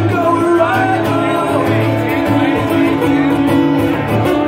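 Live acoustic guitar being strummed, with a man singing into a microphone over it.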